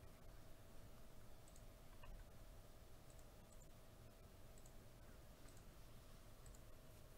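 Near silence, with faint computer mouse clicks about once a second over a faint steady hum.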